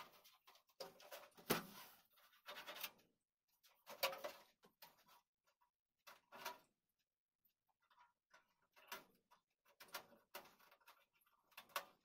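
Packaging handled during an unboxing of computer parts: rustling and light knocks in short, irregular spells, with one sharp click about one and a half seconds in.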